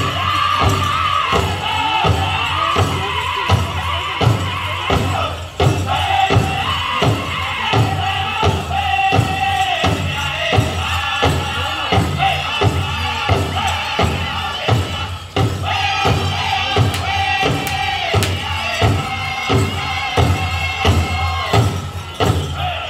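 Powwow drum group singing in chorus over a steady drumbeat, about two strikes a second, accompanying a chicken dance song.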